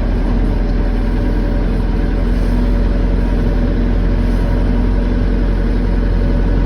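Backhoe's diesel engine running steadily while the machine drives forward, pushing snow.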